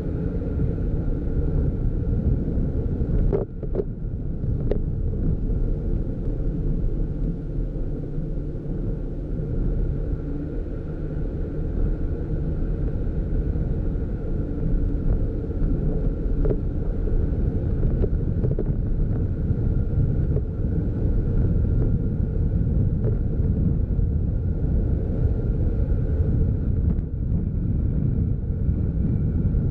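Steady low rumble of a vehicle driving on a paved road, with wind buffeting the microphone of a camera mounted on the outside of the vehicle.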